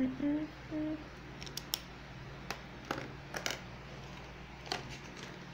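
Sharp plastic clicks and taps, about seven over three seconds, as felt-tip markers are put down, capped and handled in their plastic tray. A woman hums a couple of short notes at the start.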